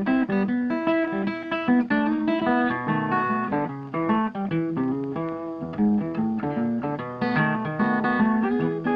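Background music: guitar picked in quick, bright notes.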